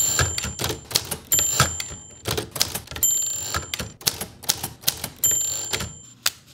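Typewriter keys striking in quick, irregular strokes, with the carriage bell dinging four times.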